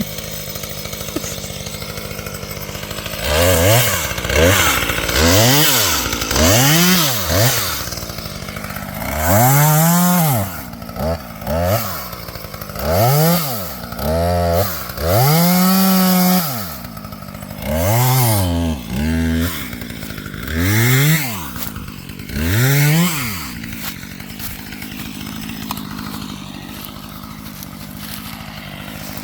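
Husqvarna T540XP top-handle two-stroke chainsaw idling, then revved up and back down about a dozen times in quick succession, then settling back to idle.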